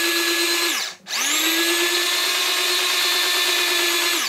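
Small battery motor of a handheld cordless mini food chopper running with a steady whine, its blades spinning against a green onion without chopping it. The motor has very little torque. It winds down about a second in, is switched on again and spins back up, then winds down at the very end.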